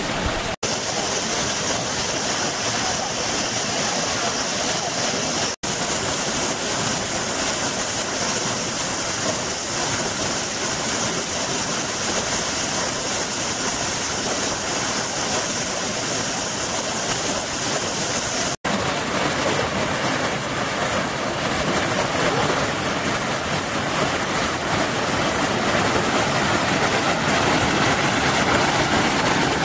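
Steady rush of falling water from the Yerköprü Waterfall, broken by three very short dropouts to silence.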